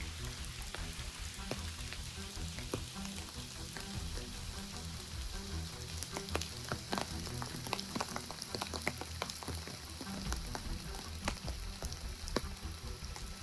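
Heavy rain falling: a steady hiss with many sharp drop impacts and drips, which come thickest in the middle stretch.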